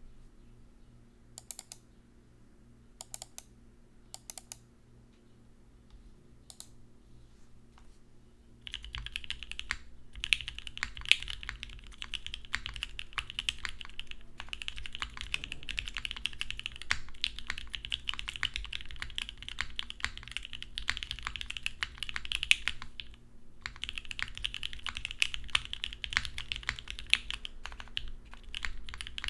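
Typing on a SINGA x TGR Unikorn mechanical keyboard with a full aluminium plate, lubed Gateron Black Ink v2 linear switches and CRP keycaps. A few single keystrokes at first, then steady fast typing from about a third of the way in, with a brief pause about three-quarters through.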